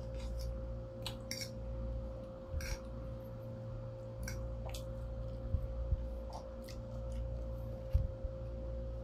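Eating sounds: scattered short clicks and taps of metal forks on ceramic plates as instant noodles are scooped and eaten, with mouth sounds of chewing, over a steady low hum.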